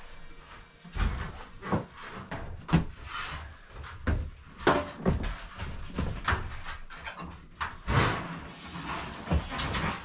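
Sheets of metal roofing being lifted and held overhead against the loft: irregular knocks, bumps and rattles as the panels flex and bump against the wooden framing.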